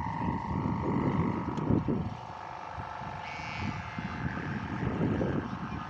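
Gusty wind buffeting the microphone in uneven low rumbles, over a faint steady high hum.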